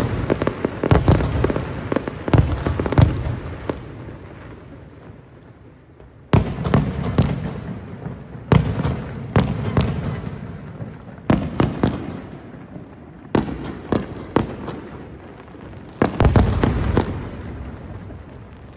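Aerial fireworks shells bursting, each sharp bang followed by a fading crackle. A dense run of bangs comes first, then a lull of about two seconds, then a single bang every two to three seconds.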